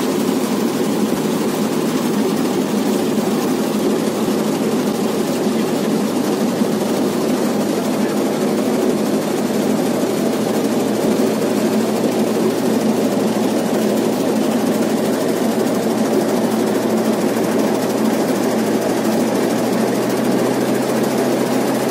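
Tractor diesel engine running steadily, driving a reaper through the PTO with its drive pulley spinning, engine speed creeping up a little.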